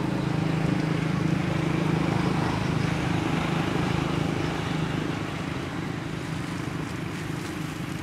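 Steady low engine drone with a broad hiss over it, easing a little about five seconds in.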